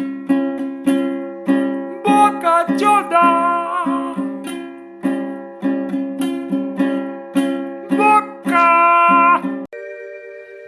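Music: a plucked string instrument, ukulele or guitar-like, strums a steady rhythm with a melody line over it. Near the end it stops on a held chord that fades.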